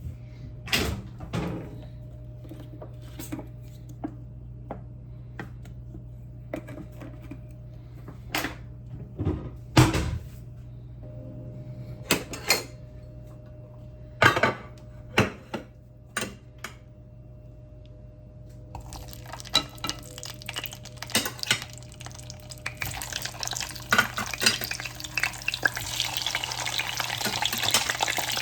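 Kitchen utensils and dishes clinking and knocking now and then, and a pan beginning to sizzle about two-thirds of the way through, the sizzle growing louder toward the end.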